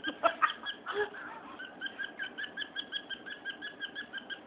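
Male cockatiel giving a fast run of short, even chirps, about six a second, while bobbing its head at a scarf in a courtship display. A few sharp taps come in the first second.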